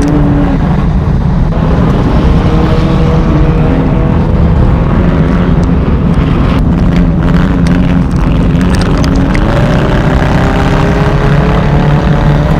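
Race car engine running hard under load. Its pitch climbs slowly twice as it accelerates, with a few knocks about halfway through.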